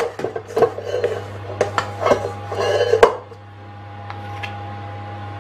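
A metal spoon and spatula clinking, knocking and scraping against a metal mixing bowl and loaf tin as thick ice cream batter is scooped and scraped off. There is a quick run of clicks and scrapes, the loudest knock comes about three seconds in, and then it goes quieter with a few faint ticks.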